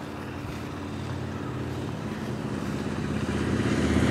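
A motor vehicle's engine running with a steady low hum that grows gradually louder.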